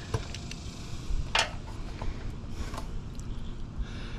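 Light handling noises from gutter pieces being checked and adjusted: a few faint clicks and two short scraping rustles, the first about a second and a half in, over steady low background noise.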